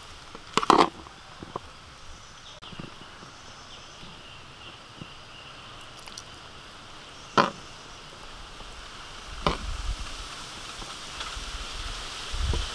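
A few sharp clicks and knocks of a spoon and hands stuffing a raw whole chicken with fried rice, the loudest about a second in, over a steady outdoor hiss. A low rumble comes in near the end.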